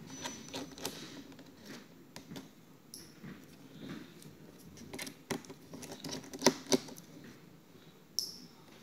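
Scattered small clicks and taps from hands and a small Phillips screwdriver working on a MacBook Pro's aluminium bottom case and its tiny screws. Two sharper clicks come about six and a half seconds in.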